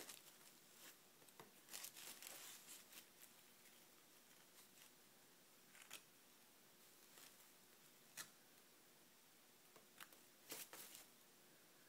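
Faint, scattered short scrapes and crinkles as a small metal scraper and fingers work masonry patch into cracks in a cast concrete piece resting on plastic sheeting. There is a cluster of them about two seconds in and another near the end.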